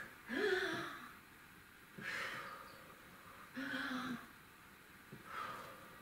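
An elderly woman breathing audibly in time with push-ups, four breaths about a second and a half apart, some exhales voiced like a short hum.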